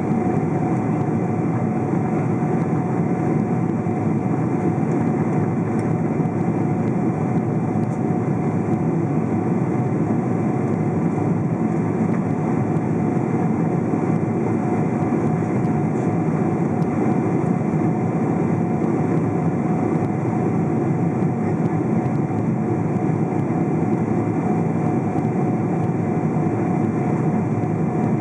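Steady cabin noise inside a Boeing 777-200 climbing after takeoff: the jet engines' drone and rushing airflow, with a steady mid-pitched hum held at one note.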